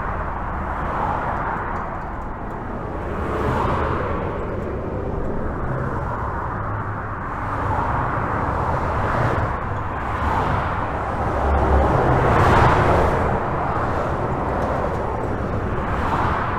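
Highway traffic: a steady rush of tyres and engines, with single vehicles swelling past every few seconds. A deeper rumble builds to the loudest pass about twelve seconds in.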